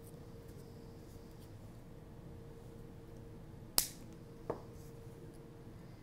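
A single sharp snip about four seconds in, typical of flush cutters trimming the tail of 18-gauge silver-plated craft wire after a loop is wrapped, followed by a softer click about half a second later, over a faint steady hum.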